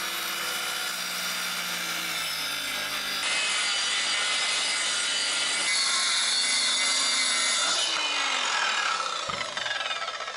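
Handheld electric circular saw ripping a 200 mm wooden board lengthwise along a rip guide, with a steady, dense cutting noise. Near the end the motor note falls and the sound dies away as the saw is released.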